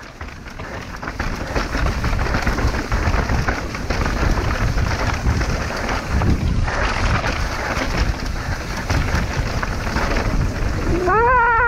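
Wind buffeting a helmet-camera microphone and mountain-bike tyres rolling and rattling over a rough trail during a fast downhill descent: a steady rushing noise with a deep rumble. Near the end a rider lets out a drawn-out shout.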